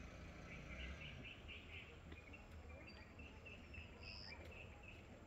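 Faint outdoor ambience with small bird chirps: two quick runs of short, high repeated notes, then a brief higher call near the end.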